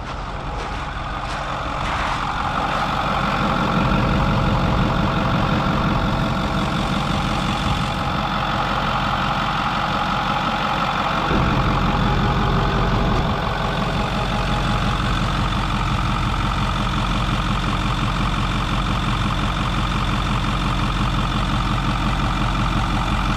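2008 Ford F250 Super Duty's 6.4-litre Power Stroke V8 turbo diesel idling steadily under the open hood, growing louder over the first few seconds.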